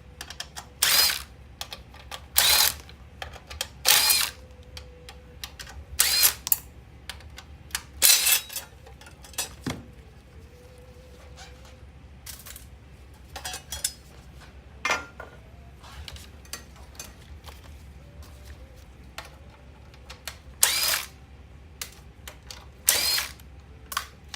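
Cordless power driver with an 8 mm socket spinning in short bursts, each under half a second, about a dozen times at irregular intervals, as it backs out the small bracket bolts on a car navigation unit.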